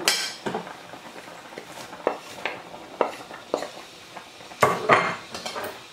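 Chopped vegetables being tipped from a plate into a pot of simmering soup: scattered clinks and knocks of the plate and a utensil against the pot, the loudest cluster near the end.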